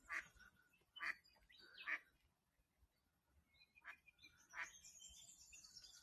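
Birds calling: five short, loud calls spread through, over faint high-pitched twittering.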